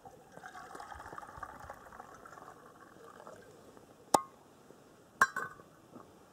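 Water gurgling and sloshing in an ice-fishing hole as a tip-up with live bait is set. Later come two sharp knocks about a second apart, the loudest sounds.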